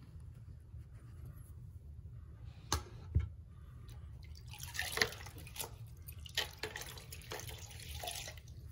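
Two dull knocks about half a second apart, then a few seconds of rustling with light clicks and clatters, as of tools and materials being handled.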